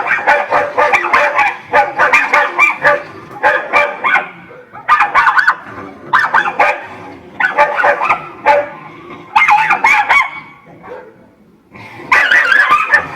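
Several angry dogs barking rapidly and aggressively in overlapping volleys, with short pauses between bouts.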